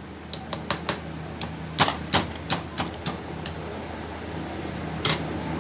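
A hammer striking a steel hex key set into a plug on an excavator's hydraulic main control valve block: about a dozen sharp strikes in quick, uneven succession, then a pause and one more strike near the end, over a steady low hum.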